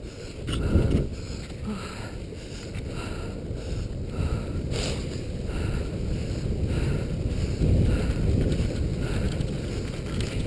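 Wind rushing over the microphone, with the swish of skate skis on packed snow coming about every two-thirds of a second.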